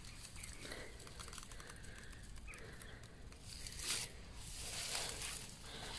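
Footsteps through grass and undergrowth, with irregular rustling and crunching strokes, a louder stroke about four seconds in. Faint chirps of a bird sound early on.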